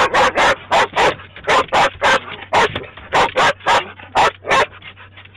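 A small dog barking in quick sharp bursts at a moving windshield wiper, about three or four barks a second, stopping near the end.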